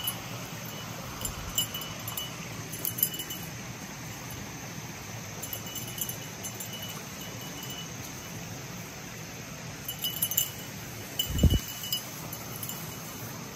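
Small metal jingling of the dog's collar in short bursts every few seconds as she moves through the brush, with a single low thump near the end.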